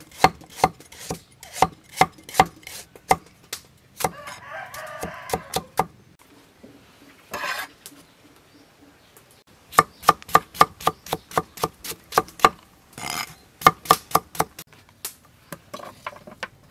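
Cleaver chopping vegetables on a cutting board in two runs of quick, even knocks, about three to four a second, with a pause between them. Chickens call in the background, most clearly about four seconds in.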